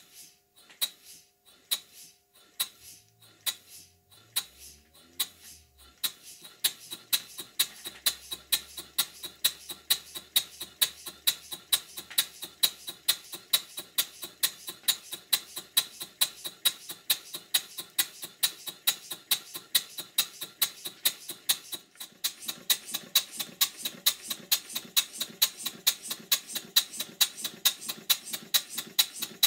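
Stuart 5A model steam engine running on compressed air: a sharp, rhythmic exhaust beat, slow and uneven for the first few seconds after the flywheel is turned by hand, then settling into a steady beat of about three a second. It falters briefly about three-quarters of the way through, then runs on a little louder. The owner says the piston gland is blowing, the flywheel knocks because its key is too small, and the valve timing is not quite right.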